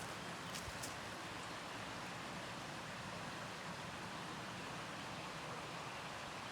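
Waterfall and creek water rushing: a steady, even hiss of falling water, with a couple of faint clicks under a second in.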